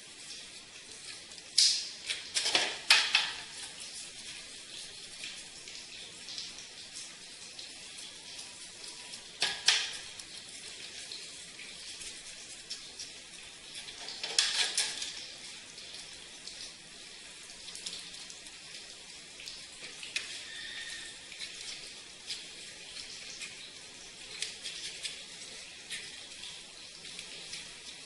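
Water spray hissing steadily onto a heavily soiled air conditioner during washing, with a few louder spurts of spray, about two, ten and fifteen seconds in.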